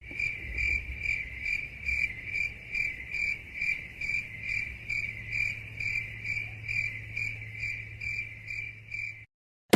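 Crickets-chirping sound effect, the stock meme cue for awkward silence: an even run of chirps a little over twice a second over a low steady hum, cutting off suddenly near the end.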